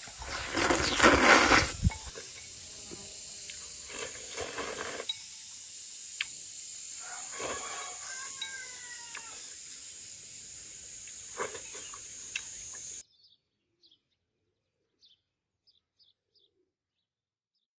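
Rural outdoor ambience: a steady high hiss with scattered clicks and a few bird chirps, after a loud rustling noise in the first two seconds. It cuts off suddenly about 13 seconds in, leaving near silence with a few faint chirps.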